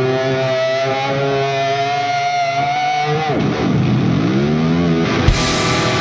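Background music: a held note that dives steeply in pitch about three seconds in, then swoops back up, with a sharp hit near the end.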